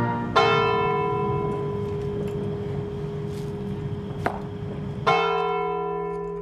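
Church bell tolling for a funeral: two strokes about five seconds apart, each ringing on and slowly fading.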